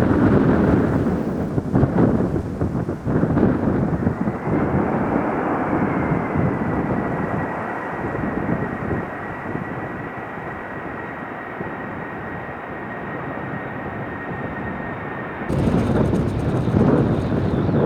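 Jet airliner engines running with a deep rumble and a steady high whine, while gusty wind buffets the microphone. The sound changes abruptly near the end, with loud wind buffeting returning.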